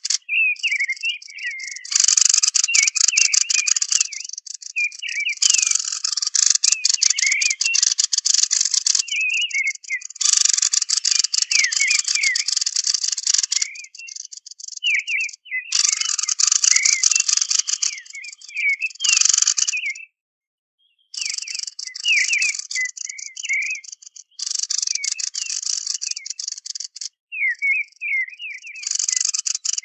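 Looped bird-call recording played as a hunting lure: a fast, dry rattling chatter comes in repeated, abruptly cut blocks, with high chirping and warbling notes throughout. It breaks off for about a second of silence about 20 s in.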